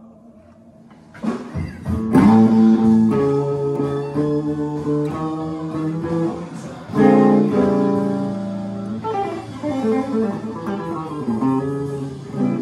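Epiphone ES-335 electric guitar through a Fender Blues Junior III tube amp playing a blues-rock part over a full band recording. After a quiet first second, loud held chords come in, and again about seven seconds in, with single-note lines between them.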